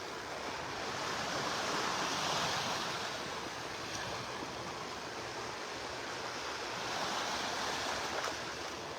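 Gulf of Mexico surf washing onto the beach: a steady hiss of breaking waves that swells louder twice, about two seconds in and again about seven seconds in.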